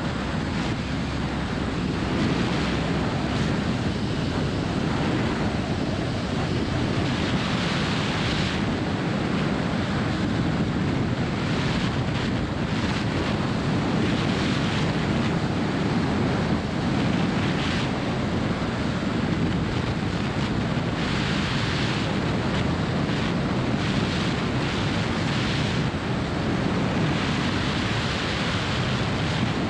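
Airflow buffeting a camera mounted outside a Jodel light aircraft in flight, over the low drone of its piston engine and propeller: a steady rushing noise that swells in gusts now and then.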